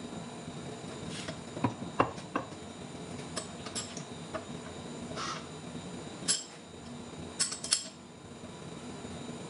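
Irregular metallic clinks and sharp knocks of a long T-handle chuck key working the jaws of a large lathe faceplate chuck. The loudest knocks come about two seconds in and again around seven to eight seconds in, over a steady hum.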